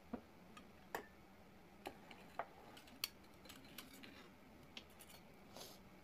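Faint, scattered clicks and taps of someone eating a meal from a thali plate, about eight in all at irregular intervals.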